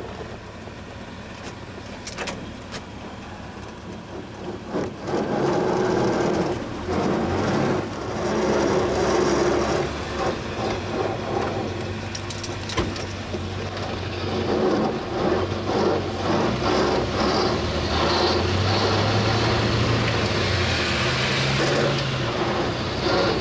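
1935 Ford truck's flathead V8 heard from inside the cab, running quietly for the first few seconds and then louder as the truck pulls away and drives on. The engine note climbs about eighteen seconds in, with a few short clunks along the way.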